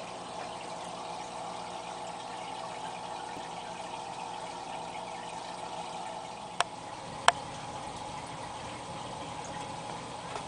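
Steady trickle of water circulating in a 65-gallon aquarium, with two sharp clicks less than a second apart a little past the middle.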